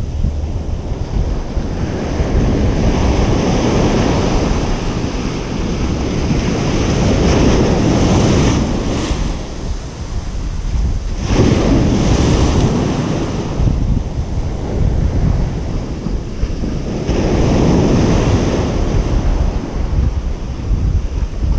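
Ocean surf on a beach: waves breaking and washing in, swelling and easing four times a few seconds apart over a constant low rumble, with wind buffeting the microphone.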